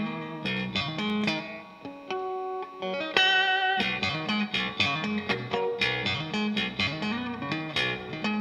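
Takamine steel-string acoustic guitar played solo and fingerstyle, with no singing: a steady picked bass line under plucked melody notes. A few high ringing notes stand out about three seconds in.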